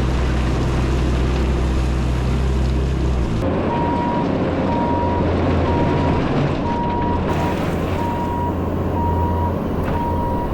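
Bobcat T650 skid steer's diesel engine running steadily. After a cut, the machine runs on with its reverse alarm beeping about once a second.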